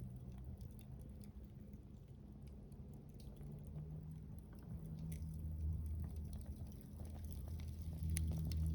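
Wood fire burning in a Coleman Fire Disc Solo fire pit, crackling and popping with scattered sharp snaps over a low rumble that grows louder about halfway through.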